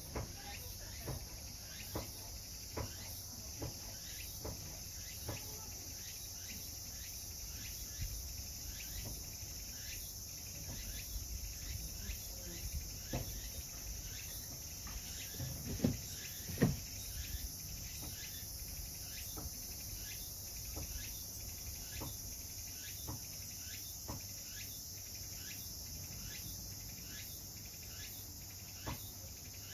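Quiet background with a steady high-pitched hiss and faint regular ticks, a little under one a second, broken by two soft knocks about halfway through.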